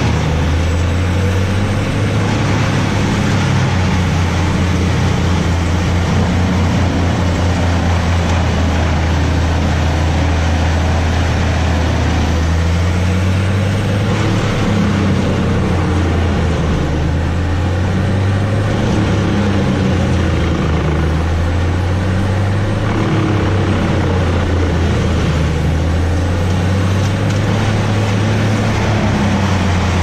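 Bandit wood chipper's diesel engine running steadily at high speed while tree limbs are fed in and chipped, the engine note dipping slightly and recovering a few times as it takes load.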